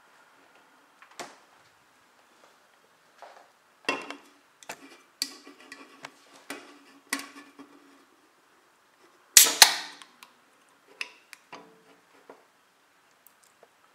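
Knocks and clinks of an aluminium Tennent's lager can being handled. About nine and a half seconds in comes the loudest sound, the sharp double crack and brief fizzing hiss of the ring-pull being opened, followed by a few light clicks.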